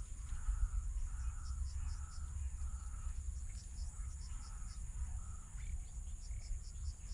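Insects buzzing steadily at a high pitch, with runs of fast pulsing chirps, while a short call repeats about twice a second; a low rumble runs underneath.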